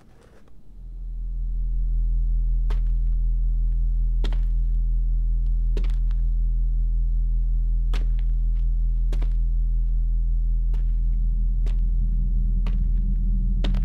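Horror-film sound design: a deep, steady low drone swells in over the first two seconds and holds, with sharp clicks every second or two.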